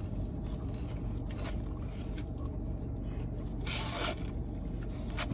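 Black plastic fork scraping and clicking against a cardboard takeout box in short scattered strokes, with one longer scrape about four seconds in. A steady low hum of the car interior runs underneath.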